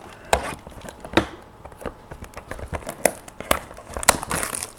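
Plastic shrink wrap being torn open and crinkled off a box of trading cards: a string of irregular sharp crackles and snaps, denser for a moment near the end.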